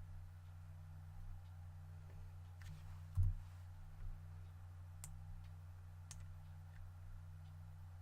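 Scattered computer mouse clicks, a few seconds apart, over a steady low electrical hum, with one duller thump about three seconds in.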